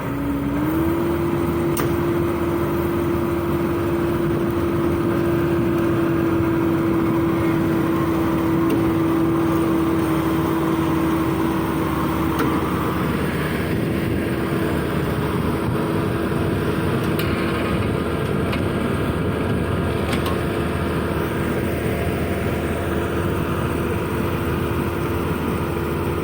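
Excavator engine running steadily at high revs with a continuous droning tone that steps up slightly in pitch just after the start and then holds.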